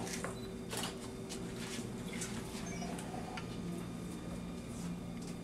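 Quiet room tone: a steady low hum with scattered faint clicks and taps.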